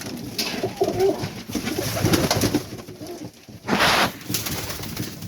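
Serbian highflyer pigeons cooing, several low coos overlapping one another. About four seconds in there is a short rustling burst.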